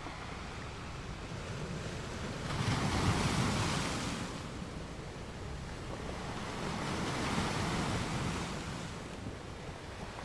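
Ocean waves washing in on a beach: a surge about two and a half seconds in, the loudest, then a second, softer surge around seven seconds, over a steady wash of surf.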